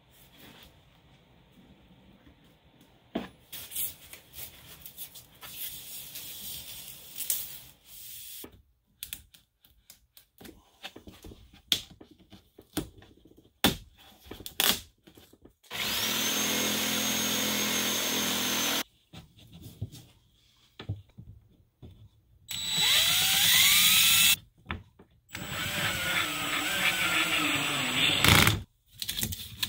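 Scattered faint scraping and clicks of a utility knife cutting Coroplast corrugated plastic sheet, then a cordless drill running in three bursts of two to three seconds each. In the last burst the motor's pitch drops as it drives a screw into the wooden frame.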